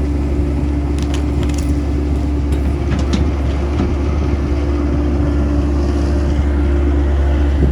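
Diesel engine of a Caterpillar 307C mini excavator running steadily. A few short clicks and knocks come between about one and three and a half seconds in.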